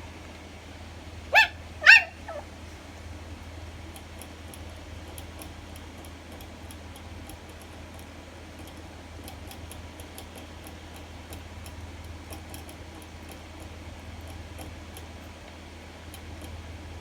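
Pomeranian puppy giving two short, high yaps about a second and a half in, with a faint third just after. Then only a steady low hum with faint, light clicking.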